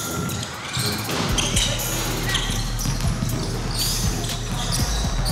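Basketball bouncing on a hardwood gym floor during a game, a string of short thuds that echo in the hall, with a low steady hum coming in just over a second in.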